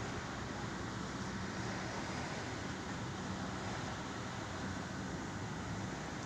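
A steady low engine rumble with an even hiss over it.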